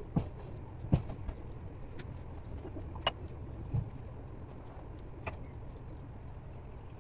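Pigeons cooing steadily, with a few short clicks and taps from hands peeling boiled potatoes over a steel plate.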